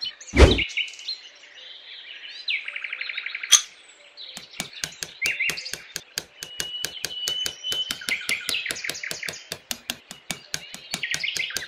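Birds chirping over a fast, even run of light taps: a small hammer tapping miniature red posts down into sand. There is a thump about half a second in.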